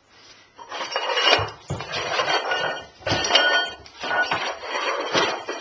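Aluminium pots clattering and scraping on the floor in several bouts, with a thin metallic ringing over the knocks.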